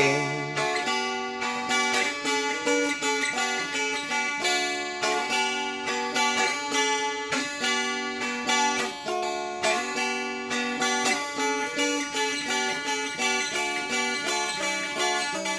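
An acoustic plucked-string instrument playing a solo instrumental passage of steadily picked notes, several a second.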